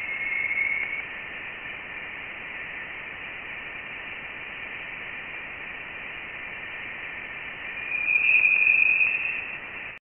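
Voyager 1's plasma wave instrument recording of dense interstellar plasma vibrating, its antenna signal simply amplified and played as sound. It is a steady hiss with a high tone in the first second, then a louder, higher tone from about eight seconds in that lasts about a second and a half. The tone's pitch marks the plasma density: the higher tone means denser plasma.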